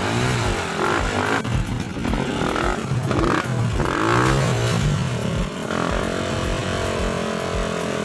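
Trail dirt bike engine revving up and down again and again under load as the bike is forced up a steep climb, then running more steadily near the end.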